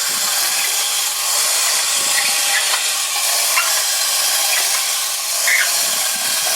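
Tin wind-up M-65 robot's clockwork mechanism running as the robot moves its arm and head: a steady hissing whir with a few faint ticks.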